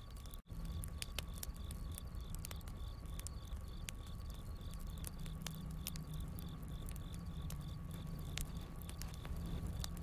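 Campfire crackling, with sharp pops scattered throughout over a low rumble of the flames, and crickets chirping in a steady, even pulse. All sound cuts out for a split second about half a second in.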